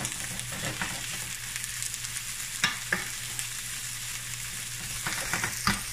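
Raw shell-on shrimp sizzling in hot olive oil and garlic in a frying pan, steady frying hiss, while a wooden spoon stirs them, knocking and scraping against the pan a couple of times midway and several times near the end.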